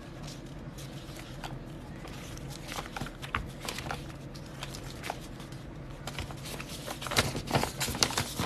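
Scattered light clicks and taps, with a denser cluster near the end, over a steady low hum in a small room.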